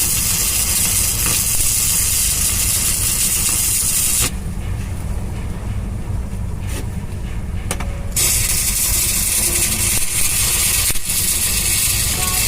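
Stick welding arc crackling and hissing as a 4 mm RB-26 electrode burns on thick steel plate. The arc cuts off about four seconds in and is struck again about four seconds later.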